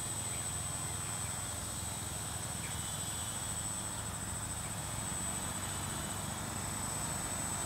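Distant quadcopter's electric motors and propellers humming steadily as it hovers, holding position in loiter mode, alongside a thin steady high whine.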